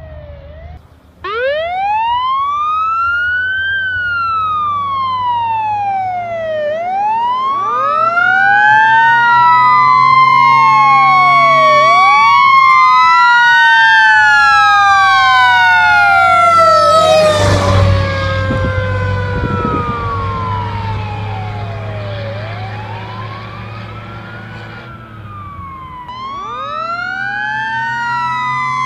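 A 1968 Seagrave FWD fire truck's siren wails up and down repeatedly, with the truck's engine running steadily underneath. About 17 seconds in the truck passes close with a loud rush of noise. The siren's pitch then slides down and fades as the truck moves away. Near the end the wail comes in again as the truck approaches once more.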